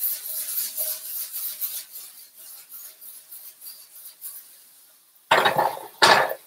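Kale sizzling in a skillet as the pan is tossed off the heat, the sizzle fading away; then two loud scraping clunks near the end as the skillet is set back down on an electric coil burner.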